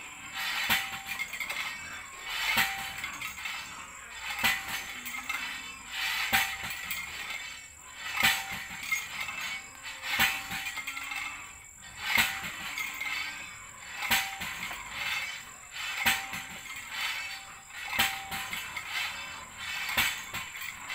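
Hand percussion well drilling: a well pipe hoisted by rope over a pulley on a bamboo tripod and dropped, striking about every two seconds with a metallic clink. The pulley and rope squeak and rattle between strikes.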